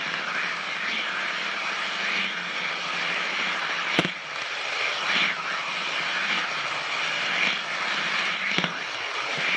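N-scale model train rolling along the track, heard close up from a camera riding on the layout: a steady rushing rattle of wheels on rail, with a sharp click about four seconds in and another near the end.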